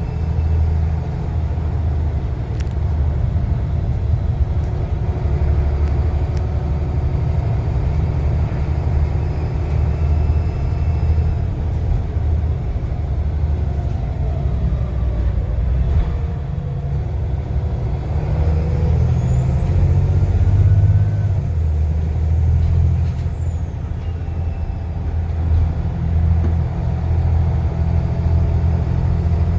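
Volvo B7TL double-decker bus's turbocharged diesel engine running with a steady low drone and shifting pitch as it works. Around two-thirds of the way through, a high turbo whistle rises, holds for a couple of seconds, then falls away.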